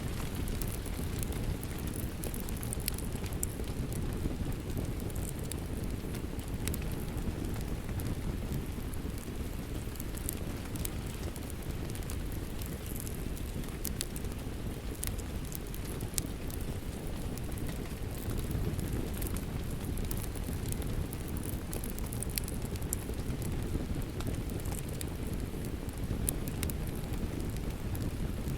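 Wood fire crackling with scattered sharp pops over steady falling rain and a low rumbling hiss.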